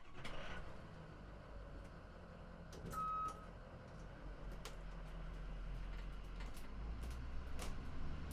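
Ambulance engine running with a low rumble that slowly grows louder, with one short electronic beep about three seconds in and scattered clicks.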